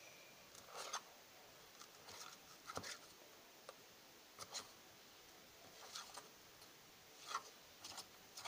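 Metal spoon stirring a stiff flour-and-water dough in a stainless steel bowl: faint, irregular scrapes and light clicks of the spoon against the bowl.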